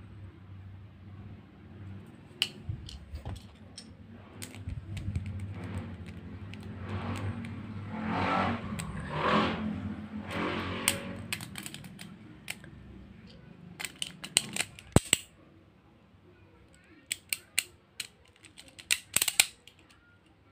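Plastic and metal Beyblade Burst parts being handled and snapped together by hand: sharp clicks, several in quick clusters near the end, with a stretch of rustling handling noise in the middle.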